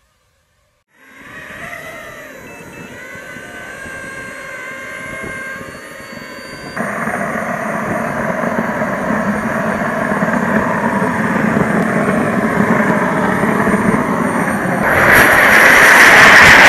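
SW140 turbine of a model jet whining with a rushing exhaust, starting after about a second of silence and growing louder. It jumps louder about two seconds before the end as the jet is on its takeoff roll.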